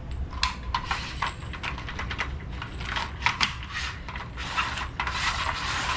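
Ryobi garage door opener belt and trolley worked along the rail by hand to check the newly fitted belt and its tension: irregular clicks and rattles, turning into a steadier rubbing sound about five seconds in.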